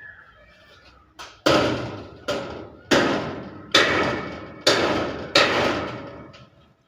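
Hammer blows on metal: a light tap, then six heavy strikes in a steady rhythm, each ringing and dying away before the next. It is the hammering used to knock a roofing member into position.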